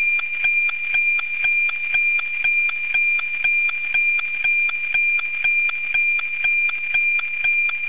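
NOAA-19 weather satellite's APT image signal, picked up at 137.1 MHz by an RTL-SDR and demodulated in SDR#: a steady high tone with a regular tick-tock about twice a second, the line sync pulses of the image being sent.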